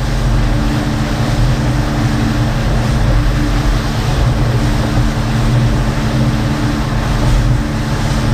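Motorboat running at speed: a steady engine drone under loud rushing wind and water from the hull and wake.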